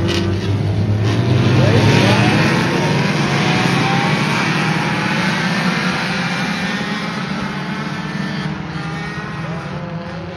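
Front-wheel-drive race cars' engines revving hard as they lap the track, loudest about two seconds in and then slowly fading as they move away.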